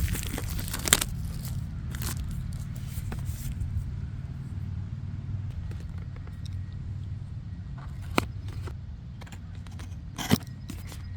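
Packaging and microphone parts being handled during an unboxing: crinkling and scraping in the first second, then scattered sharp clicks, the loudest about ten seconds in, over a steady low hum.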